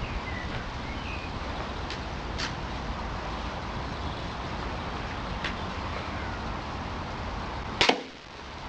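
80 lb pistol crossbow shooting bolts into a water container: a few sharp snaps a few seconds apart, the loudest near the end.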